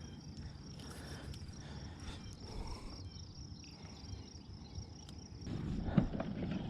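Insects buzzing steadily at a high pitch, with a few faint ticks; a low rumble comes in about five and a half seconds in.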